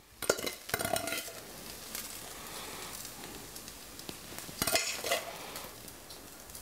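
Fried rice being scraped out of a stainless steel pan onto a plate with a metal utensil: scraping and clatter near the start and again about four and a half seconds in, with a steady soft hiss between.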